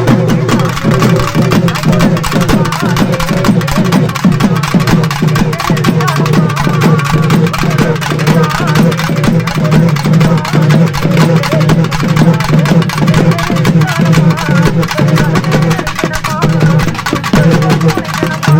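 Loud music with fast, continuous drumming over a steady low drone.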